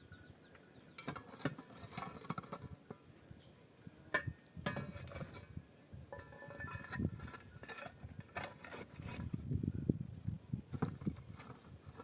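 Irregular light clinks and knocks of objects being handled, with low thuds in the second half.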